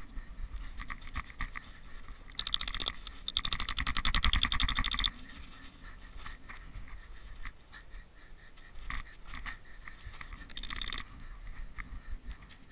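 Scraping and rustling as a lavvu's canvas is dragged over snow and pegged out. A few seconds in, a loud rasping burst of rapid clicks lasts about three seconds, and a shorter one comes near the end.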